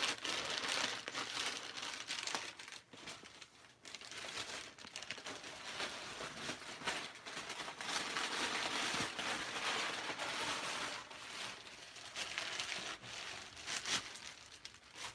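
Rustling and crinkling with irregular crackles: handling noise from a hand-held camera being moved and panned around.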